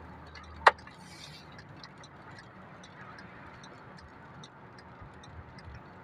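Car cabin noise while driving on a wet road: a low steady hum that eases about a second in, with light irregular ticking throughout and one sharp loud click near the start.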